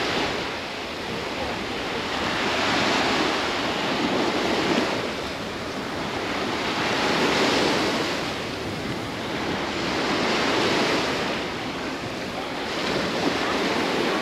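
Sea surf: waves breaking and washing up a sandy shore, the rush swelling and easing in slow surges a few seconds apart.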